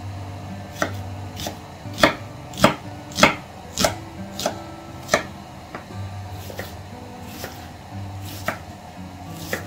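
Chef's knife dicing an onion on a wooden cutting board: sharp knocks of the blade through the onion onto the board, in a steady rhythm a little under two a second. The knocks are loudest in the first half and lighter towards the end.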